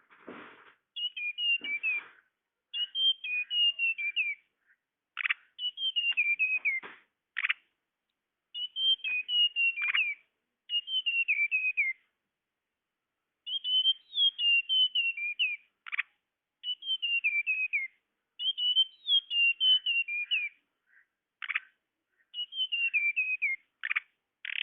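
Lure recording of tledekan bird calls: repeated phrases of high, quick chirps that slide downward, each about a second long, with single sharp notes between them.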